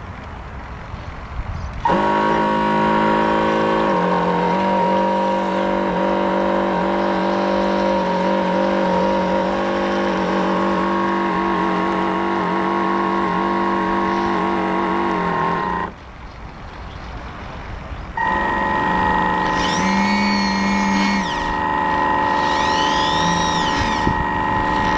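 Motor of a radio-controlled model S-boat running under throttle, a steady whine with several held tones. It cuts off abruptly about two-thirds of the way through and comes back on about two seconds later.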